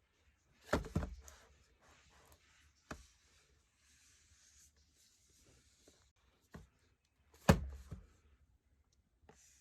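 Hands handling computer parts: a few sharp knocks and clicks, with two louder knocks about a second in and again about halfway through, and light rubbing and scraping between them.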